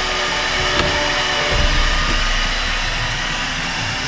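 RUPES electric heat gun blowing steadily, a continuous even hiss of hot air as it warms the door panel for paintless dent repair.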